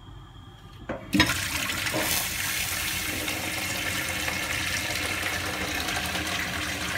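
Noodle cooking water poured from a pot into a stainless steel sink, splashing onto a plate. A knock about a second in, then a steady pour.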